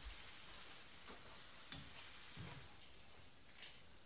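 Hot oil sizzling faintly in a small frying pan as gimmari (seaweed-wrapped glass-noodle rolls) deep-fry, with a few light ticks and one sharp click about two seconds in.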